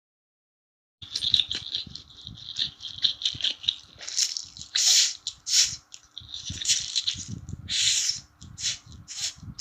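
Close-up eating noises: quick wet chewing and smacking, broken by longer slurps. They start about a second in and go on in rapid bursts.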